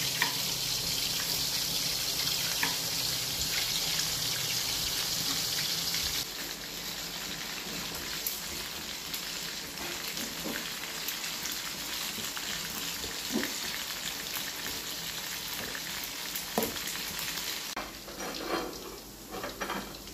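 Turmeric-marinated chicken pieces frying in hot oil in an aluminium wok: a steady sizzle, with scattered clicks and clinks of a knife and a metal spoon. Near the end the sizzle gets quieter amid a few clatters of the spoon against the wok as the half-cooked pieces are lifted out.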